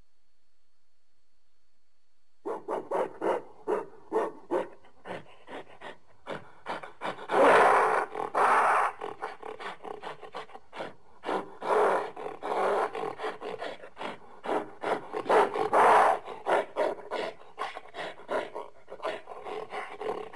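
Gorilla calls: after a couple of seconds of quiet, a fast run of short grunting pulses builds into louder, drawn-out howls. The loudest howls come about seven to nine seconds in and again around sixteen seconds.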